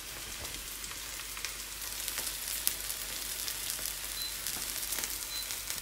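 Chopped onion, garlic and ginger frying in oil in a pan: a steady sizzling hiss with small scattered crackles.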